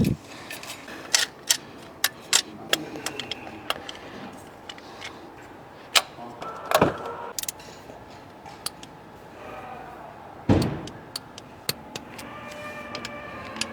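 Scattered light metallic clicks and clinks of engine parts and tools being handled during timing-chain installation, with two louder knocks about seven and ten and a half seconds in. Background music comes in near the end.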